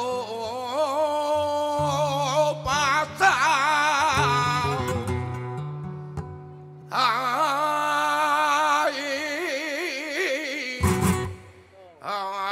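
Male flamenco cantaor singing long, drawn-out wavering melismas with no clear words, over a flamenco guitar holding low plucked notes. The voice breaks off briefly about six seconds in and again near the end, with a sharp guitar stroke about eleven seconds in.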